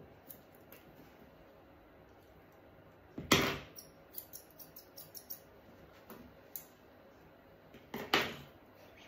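Grooming scissors snipping a puppy's coat in scattered small clicks, with two louder, brief knocks about three seconds in and near the end.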